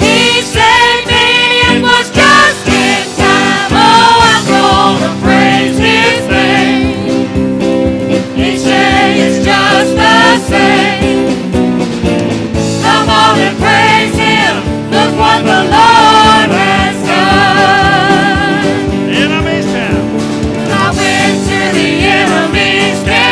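Gospel-style worship music: singing voices with vibrato over steady held instrumental chords.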